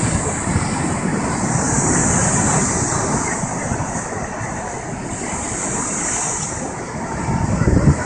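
Heavy storm waves surging and breaking: a steady rush of churning surf whose hiss swells twice.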